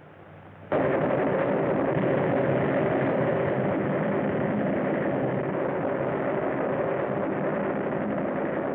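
A steady, loud engine drone of a vehicle cuts in suddenly under a second in and runs on unchanged, heard on an early sound-film track that stops at about 4 kHz.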